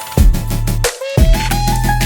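Background music: an electronic track with punchy drum hits, a steady bass and gliding synth melody notes.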